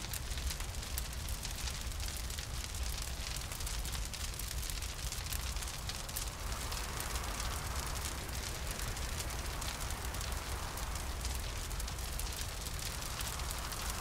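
Crackling fire sound effect: a dense run of small crackles and pops over a steady low rumble. A hollow wind swells in about halfway through.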